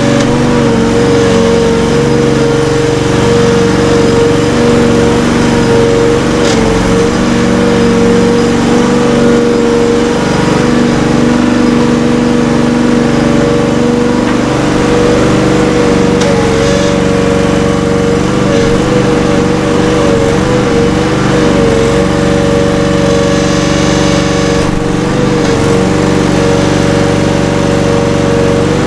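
Case/David Brown 885 tractor's diesel engine running steadily, heard close up from its front loader, its pitch holding nearly constant.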